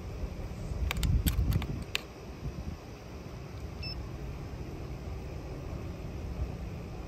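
Handling noise from a digital trigger pull gauge being reset and hooked onto an air rifle's trigger: a few light clicks in the first couple of seconds with a low rumble, one more small click near the middle, then steady low background noise.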